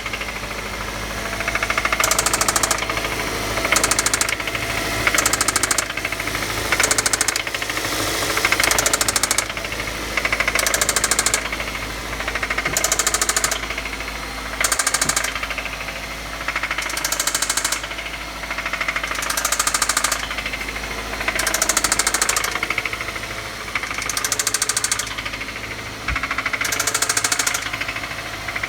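Engine running with a rod knock from a spun connecting-rod bearing on cylinder 1: a rapid knocking that swells and fades every couple of seconds.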